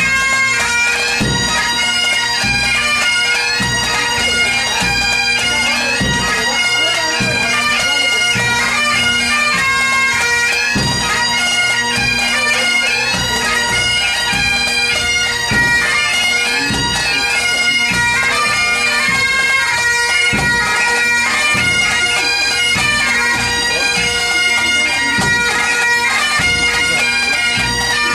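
Pipe band playing: several Highland bagpipes sound a tune over their steady drones, with drum beats underneath.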